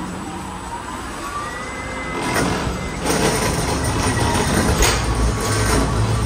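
A heavy vehicle's engine rumbling, growing louder about two to three seconds in, with two sharp knocks about halfway and near the end.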